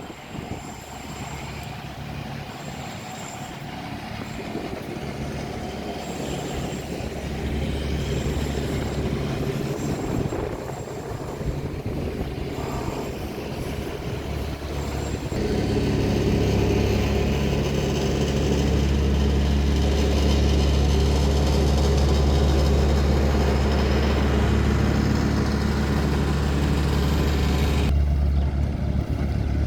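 Heavy diesel engine running steadily with a low rumble, growing louder about halfway through and holding there.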